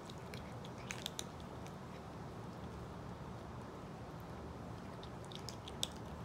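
A kitten crunching dry cat kibble: a few quick, crisp crunches about a second in and another cluster near the end, over steady background noise.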